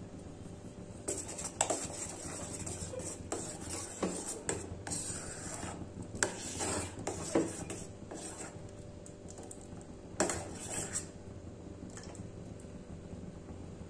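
A metal spoon stirring and scraping in a stainless steel saucepan of thick chocolate milk, clinking against the pan's sides and bottom on and off, settling down after about 11 seconds.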